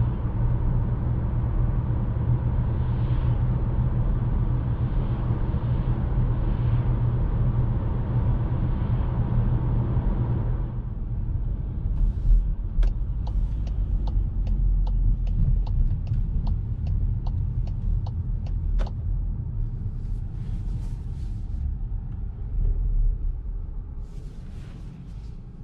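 Cabin sound of a Cupra Formentor 1.5 TSI, a four-cylinder turbo petrol, on the move: steady engine and tyre road noise with a strong low hum. About eleven seconds in it drops as the car slows, and a run of evenly spaced ticks from the turn indicator follows, about two to three a second for several seconds. Toward the end the car rolls slowly and the noise fades.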